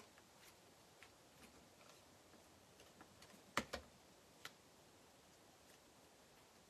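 Near silence with a few faint clicks and taps as small die-cut paper daisies are handled and pressed onto a card front; the loudest is a sharp double click about three and a half seconds in, with a smaller one a second later.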